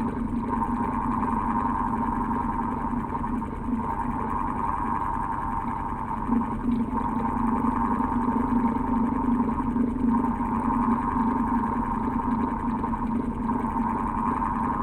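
Old electric house fan running steadily, a motor hum under a whirring band that briefly dips about every three and a half seconds.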